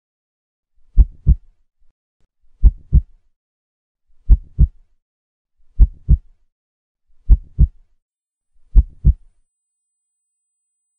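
Heartbeat sound effect: six slow double beats, each a deep thud followed closely by a second, about a second and a half between beats. It stops a little before the end.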